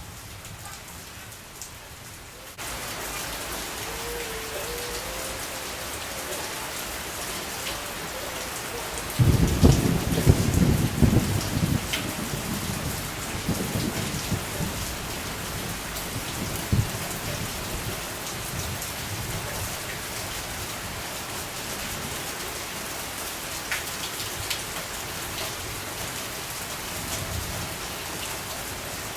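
Steady rain falling, its hiss stepping up abruptly about two and a half seconds in. A roll of thunder breaks about nine seconds in and rumbles away over several seconds.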